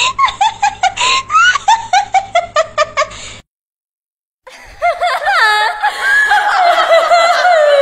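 Evil laugh sound effects: a rapid, high-pitched cackle in quick pulses cuts off about three and a half seconds in. After a second of silence, another drawn-out laugh follows, with pitch sliding up and down and several voices layered.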